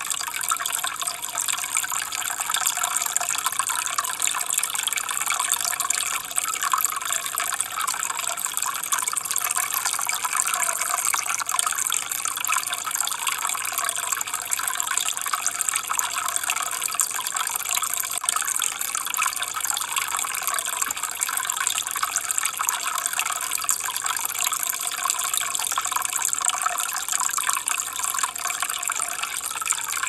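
Steady, unbroken rush of flowing, splashing water, bright and hissy with little deep rumble.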